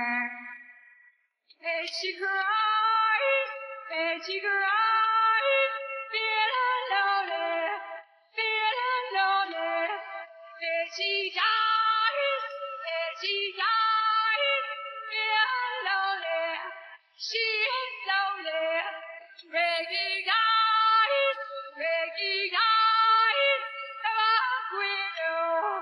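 A woman's lead vocal singing alone, isolated from the live band's mix, in several phrases broken by short pauses.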